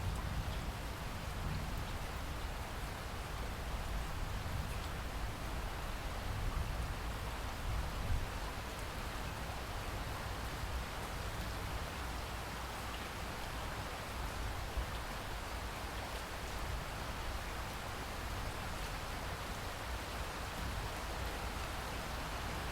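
Steady rain falling, an even hiss of drops on surfaces over a low rumble, with a single louder drop or patter about eight seconds in.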